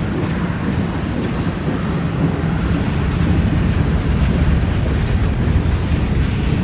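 Freight train passing close, a GE diesel locomotive's engine making a loud, steady low rumble over the noise of the train on the rails.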